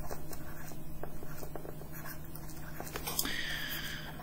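Pen stylus writing on a tablet: faint, irregular taps and scratches as words are handwritten. A brief, soft falling whistle-like tone comes near the end.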